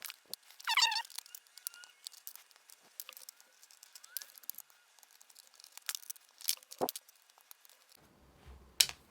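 Scattered light clicks and taps of a small screwdriver and metal screws being worked on a laptop's bottom case, with a brief pitched squeak about a second in.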